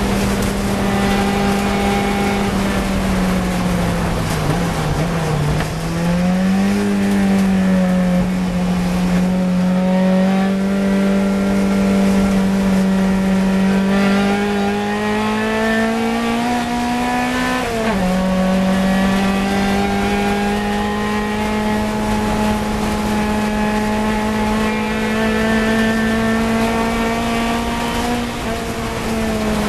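Fiat 124 Sport Coupe's twin-cam four-cylinder engine racing at high revs, heard from inside the cockpit. The engine note dips and recovers about five seconds in, climbs steadily, drops suddenly about eighteen seconds in, then holds before falling again near the end.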